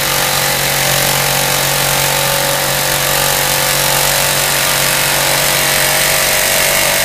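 Jigsaw cutting through steel plate, running loud and steady under load. The blade is overheating and burning up in the cut.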